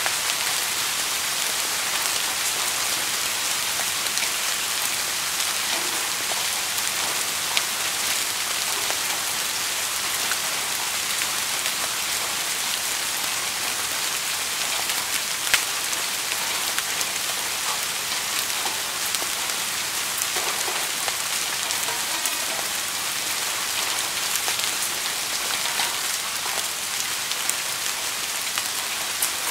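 Steady rain falling: an even hiss with a few louder single drops ticking out of it.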